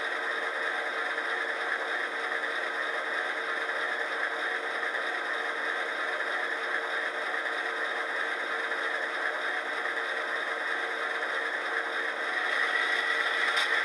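Sound decoder in an HO-scale model of an Alco C630 diesel locomotive (Soundtraxx Tsunami) playing steady diesel engine running sound through the model's small speaker, thin and with no deep bass. It gets slightly louder near the end.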